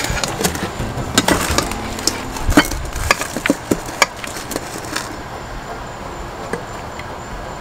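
Metal serving spoon clinking and scraping against a stainless steel mixing bowl while salad is tossed: a run of irregular sharp clinks that thins out and quietens after about five seconds.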